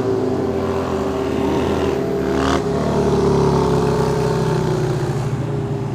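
Sport motorcycle engine running under way at a fairly steady pitch, climbing slightly about halfway through and then holding.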